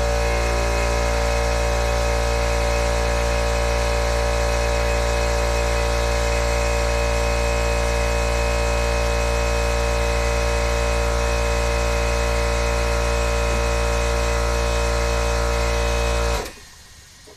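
McGraw 8-gallon 1.5 HP oil-free air compressor running steadily with an even motor hum, then shutting off abruptly about a second before the end.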